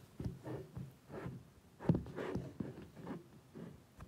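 Handling noise: irregular light knocks and rubbing as a phone and a plastic tub are shifted about on a countertop, with a sharper knock about two seconds in.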